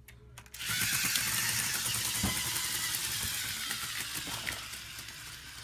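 A tracked LEGO Mindstorms robot's electric motors whining and its rubber-padded tracks clattering on a wooden floor as it drives off. It starts about half a second in and grows gradually quieter as the robot moves away.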